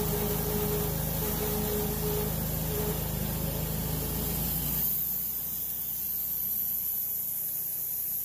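Wood-Mizer LT10 bandsaw mill sawing through a maple log, a steady mechanical running sound with sawdust spraying. About five seconds in, the deep part of the sound drops off suddenly as the blade finishes the cut, leaving a high hiss.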